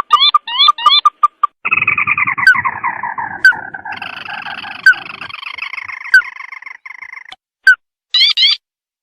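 Recorded crake (tikusan) lure call: quick groups of short rising notes, then a long chattering trill that falls slowly over several seconds, with sharp clicks about once a second. The rising notes return near the end.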